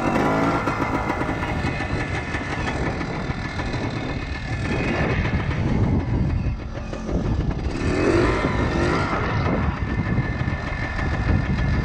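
Kawasaki KT250 trials bike's two-stroke single-cylinder engine running while being ridden, the revs rising and falling with the throttle.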